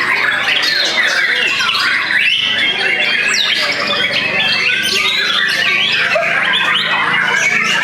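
Several white-rumped shamas singing at once, a dense, unbroken tangle of fast, varied phrases, trills and calls.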